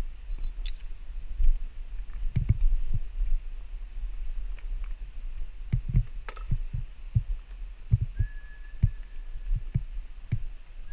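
Footsteps and camera handling in a cave: irregular dull thumps over a steady low rumble, with a few faint clicks. A faint steady high tone starts about eight seconds in.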